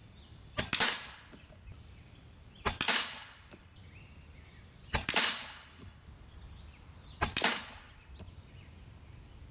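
FX Lil' Slugger Power Pup bullpup PCP air rifle fired four times, about two seconds apart. Each shot is a sharp crack, just after a faint click, that fades quickly.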